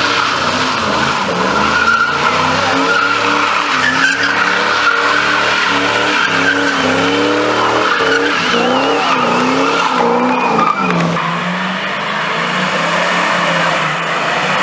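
Muscle cars doing burnouts: engines revving up and down hard while the spinning rear tyres squeal and skid on the asphalt.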